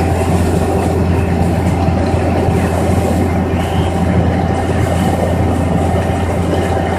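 Concrete mixer truck's diesel engine running with a steady low hum while its drum turns and empties down the chute, with the rushing noise of the discharge over it.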